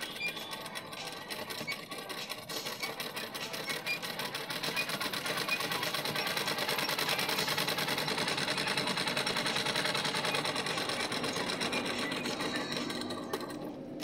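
Sewing machine stitching through cloth and a paper pattern, a fast, steady run of needle strokes that grows louder about five seconds in and eases off in the last two seconds.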